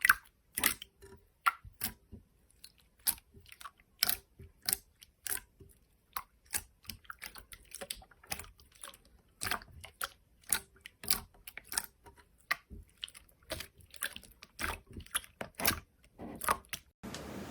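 Slime being squeezed and pressed close to the microphone, giving a run of irregular crisp clicks, pops and crackles. Near the end it changes to a steady hiss.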